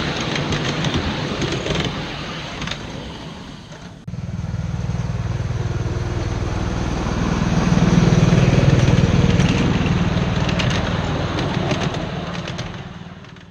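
A 7¼-inch gauge ride-on miniature train's passenger cars rattle and click past over the rails. About four seconds in, the sound gives way suddenly to a steady small-engine drone, which swells and then fades out at the end.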